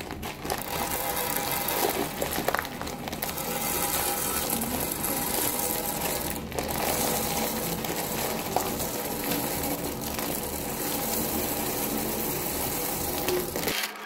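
Raw shelled peanuts pouring out of a plastic bag onto a granite countertop: a dense, continuous rattle of many small nuts hitting stone and each other, with the plastic bag crinkling.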